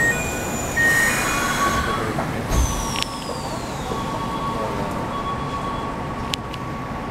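Sliding passenger doors of a Keikyu New 1000 series train car closing: two short high beeps, a falling whine, and a heavy thump about two and a half seconds in as they shut. Steady faint high tones follow.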